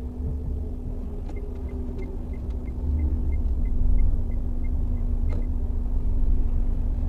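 Low, steady road and engine rumble heard inside a moving car's cabin. From about a second in, a row of short, high ticks comes at about three a second, and a single sharp click sounds about five seconds in.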